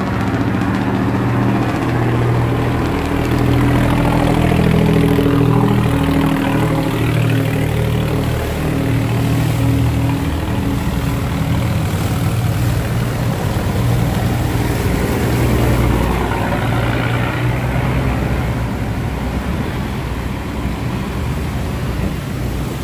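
Diesel engine of a steel cargo barge running hard as it passes close by, a steady hum over the rush of fast-flowing water. The engine's tone drops away about halfway through, leaving the water noise.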